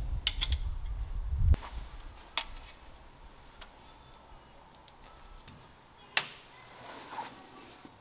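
Metal pliers and a hose clamp on an engine's rubber oil drain hose being worked by hand, with the metal drain cap handled: a string of small sharp metal clicks. The loudest click comes about six seconds in. A low rumble of handling sounds fills the first second and a half and stops at a click.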